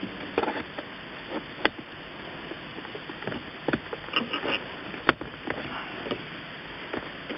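Plastic clicks and light handling rustle as a Mercedes Bluetooth phone module is pressed into its armrest contact plate, with two sharp clicks, one about a second and a half in and one about five seconds in, the later one the module snapping into place.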